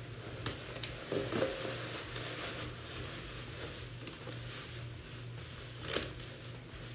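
Thin plastic bag crinkling and rustling as gloved hands twist it and knot it shut, with scattered sharp crackles, the loudest about six seconds in.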